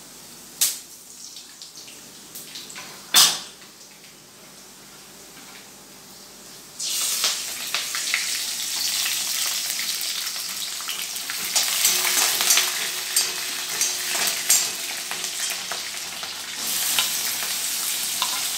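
Tempering frying in hot oil in a steel kadai. After two sharp knocks in the first few seconds, a loud sizzle starts suddenly about seven seconds in, full of crackles and pops, as the seasoning hits the hot oil. It grows louder again near the end, when chopped onions are in the pan and being stirred.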